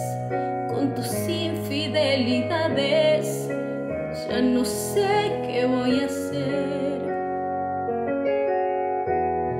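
A woman singing a slow ballad with vibrato over piano accompaniment. About seven seconds in, the voice stops and the piano chords carry on alone.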